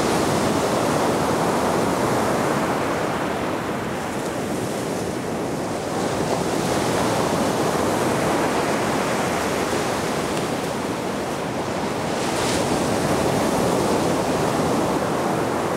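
Baltic Sea surf: waves breaking and washing on the shore in a steady rush that swells and eases every few seconds.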